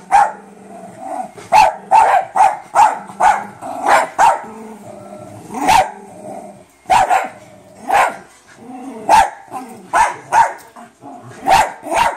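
Small dogs barking and growling in rough play with a puppy: sharp barks, most about half a second apart, with low growls in between and a short lull about halfway through.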